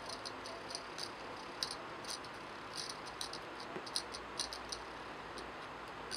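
Faint, irregular short high chirps of insects over a steady hiss.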